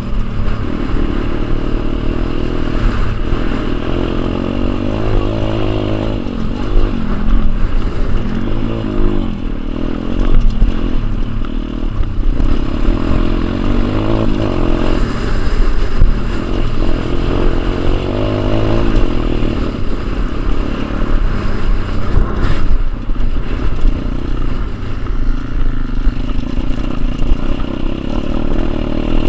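Pit bike engine revving up and falling back again and again as it is ridden hard over a dirt track, with rattling from the bike and wind rumbling on the microphone.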